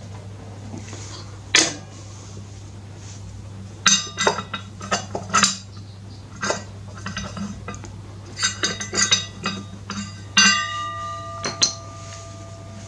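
Steel-backed brake pads and metal tools clinking and tapping against a motorcycle brake caliper as the pads are fitted, in irregular clusters of sharp clicks. One strike about ten seconds in leaves a ringing tone for a couple of seconds. A steady low hum runs underneath.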